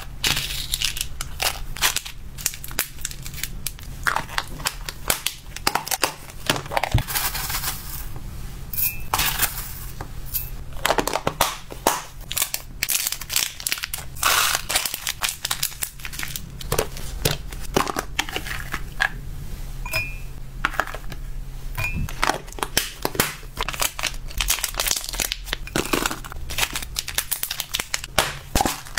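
Small clear plastic snack bags crinkling and rustling as they are opened and handled, mixed with light clicks and taps of a plastic spoon and dry treats against plastic tubs.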